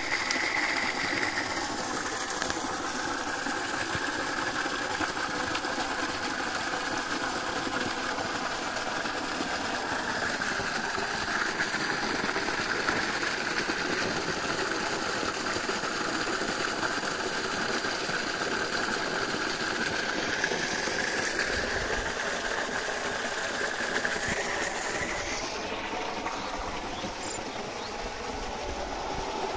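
Water rushing out of the outlet pipe of a 3 HP solar-powered pump and splashing onto the ground, a steady rush with a wavering high whine in it, a little quieter near the end.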